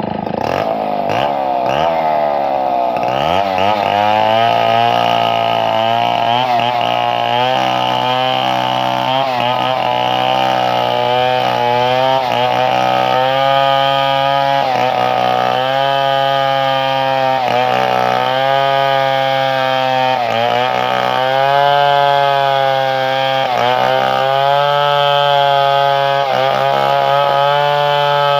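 Two-stroke chainsaw engine running hard, its revs swinging up and down sharply in the first few seconds, then holding high with small dips and recoveries as the chain works through wood.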